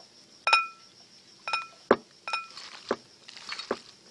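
Glass mixing bowl clinking three times, each with a short bright ring, as a hand and beer glass knock against it. Between the clinks come dull thumps and a soft squelch of a hand mixing thick, sticky fritter batter in the bowl.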